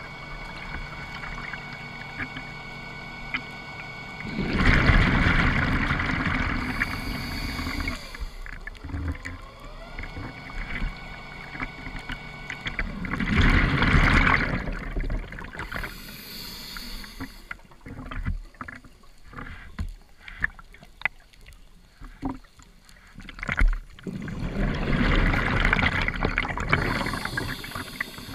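Scuba regulator heard underwater: three long bursts of exhaled bubbles roughly ten seconds apart, with quieter breathing and scattered faint clicks in between.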